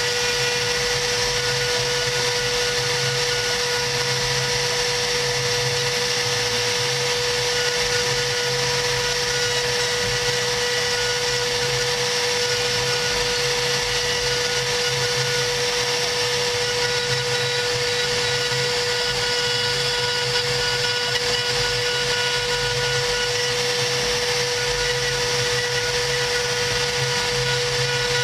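CNC router spindle running at a constant speed with a steady whine while its small bit engraves a design into 3 mm cardboard.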